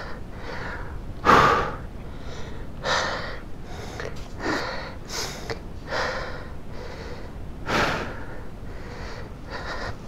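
A person breathing hard and out of breath from exertion, about seven heavy breaths, roughly one a second, the loudest about a second in.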